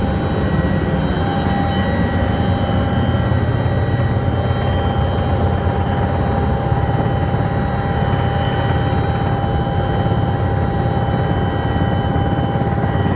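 Helicopter cabin noise: a steady, loud rotor and engine drone with a constant turbine whine over it.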